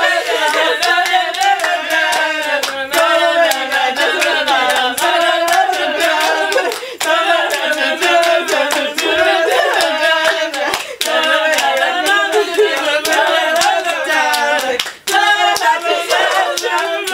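Group of young women singing a rhyme together while doing a hand-clapping game, quick hand claps running through the singing, which breaks off briefly a few times.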